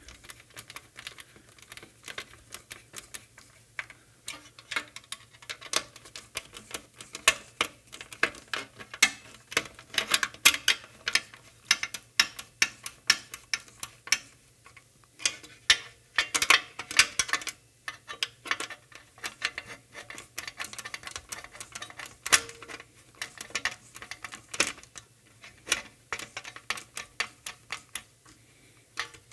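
Metal hand tools clicking and ticking in quick, irregular clusters as bolts are tightened with a hex key through an aluminium plate.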